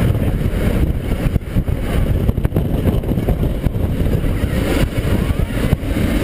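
Strong wind from a fan-driven wind machine buffeting the microphone: a loud, steady low rumble.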